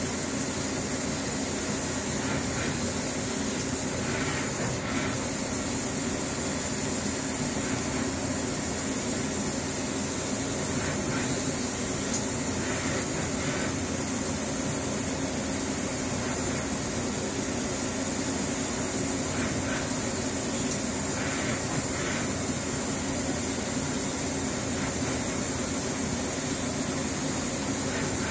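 Steady hiss of coolant mist spraying from a nozzle over a CNC machining centre's running spindle, as a flat drill bores into a tapered part. A few faint, short bursts of cutting noise rise now and then.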